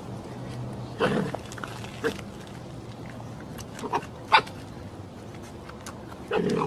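Red fox giving about five short, sharp yips at uneven intervals, the first and last a little drawn out.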